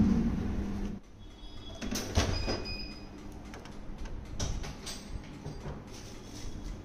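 A GETIDY 23L flash autoclave's steady hum cuts off about a second in. Then come clicks, knocks and a short high squeak as its door is unlatched and swung open.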